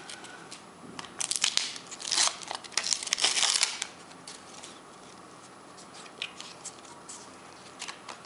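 A Panini sticker packet being torn open, its paper wrapper tearing and crinkling in several quick bursts over about three seconds. After that come only faint clicks of the stickers being handled.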